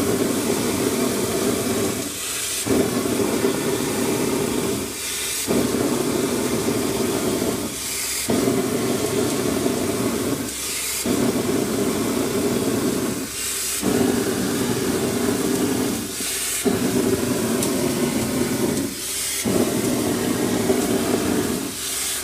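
Gunite being sprayed through a hose nozzle: a loud, steady rush of concrete and compressed air that drops out briefly about every three seconds, each break marked by a short sharp hiss.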